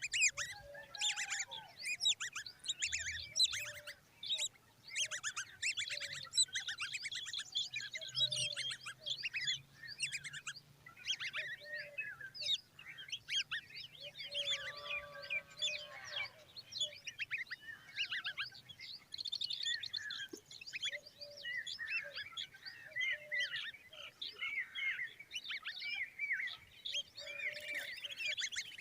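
Common babbler nestlings calling nonstop in a dense stream of short high chirps, the begging calls of hungry chicks. A lower, harsher call with a buzzy, layered tone cuts in about fifteen seconds in.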